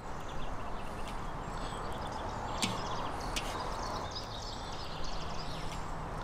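Outdoor ambience: a steady background hiss with small birds chirping throughout, and a few sharp clicks.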